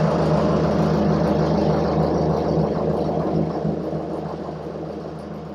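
A machine with a motor running steadily, a low hum under a broad hiss, fading gradually over the last couple of seconds.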